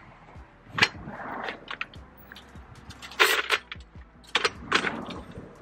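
Metal clanks and clicks from an aluminum deer cart's frame and wheel being unfolded and fitted together: a handful of sharp knocks, the loudest clatter about three seconds in.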